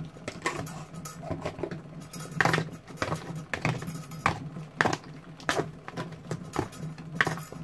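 A metal spoon clinking and scraping against a plastic tray while raw chicken pieces are stirred with salt and seasoning, giving irregular sharp clicks and knocks.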